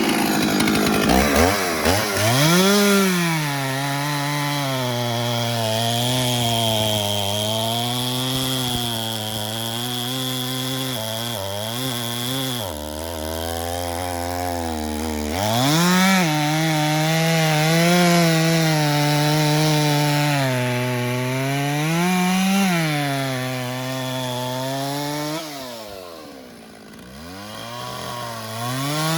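Stihl two-stroke chainsaw cutting through a log, its engine pitch rising and falling again and again as the chain loads and frees in the wood. About 13 seconds in it drops to a low steady idle for a couple of seconds, then revs back up and cuts on. It goes quieter briefly near the end before revving again.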